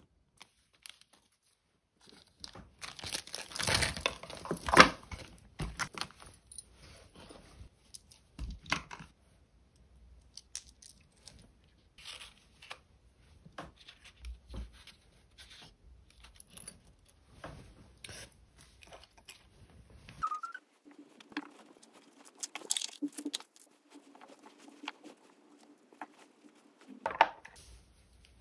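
Rings and earrings being picked out of a clear plastic bag and pouches and set into a fabric-lined red oak jewelry box: scattered small clicks and clinks with plastic crinkling, the loudest rustling a few seconds in.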